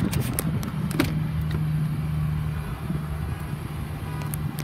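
Ford F-150 pickup's engine idling, a steady low hum, with a few sharp clicks from the door being handled, the loudest about a second in.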